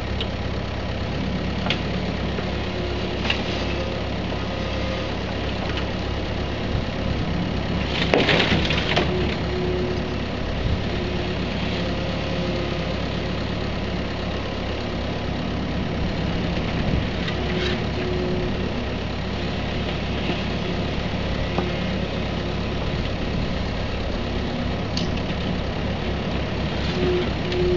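Kubota mini excavator's diesel engine running steadily, with a hydraulic whine that comes and goes as the arm and bucket work. About eight seconds in there is a loud scraping crunch of the bucket in soil and stones.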